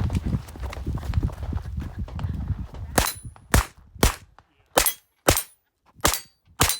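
Seven rapid .22 LR shots from a Taurus TX22 Competition pistol with a compensator, starting about three seconds in and spaced roughly half a second to three-quarters of a second apart. Before them there is a low rumbling noise.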